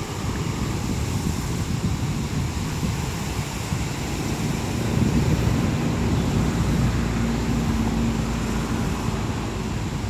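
Sea waves washing and breaking over a rocky shoreline, with wind buffeting the microphone. A faint steady hum sounds from about halfway through to near the end.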